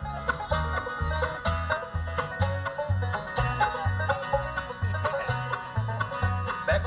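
Live bluegrass band playing an instrumental passage: banjo picking over acoustic guitars and mandolin, with the upright bass playing about two notes a second, alternating between two pitches.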